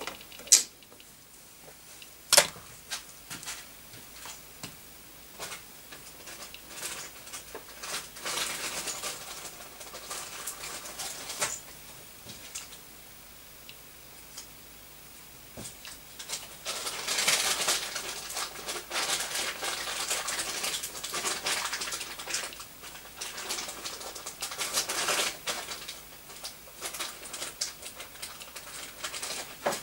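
Geiger-Müller counter with a Soviet STS tube clicking irregularly, each click a detected radiation particle, with stretches of rapid clicking. Two sharp knocks come in the first few seconds.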